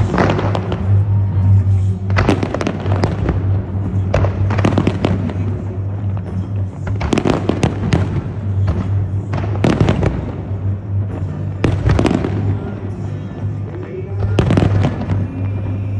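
Fireworks bursting in clusters of sharp bangs every couple of seconds, over loud music with a steady deep bass note.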